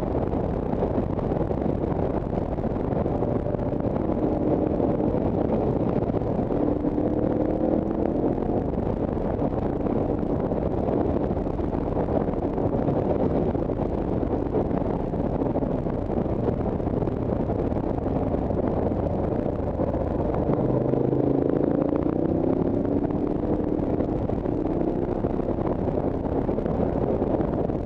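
Motorcycle engine heard from on board while riding, its pitch rising and falling with the throttle over a steady rush of noise.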